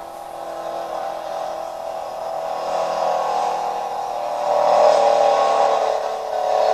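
Pulling tractor's engine running hard at high revs under heavy load as it drags the weight-transfer sled, getting louder about two-thirds of the way through.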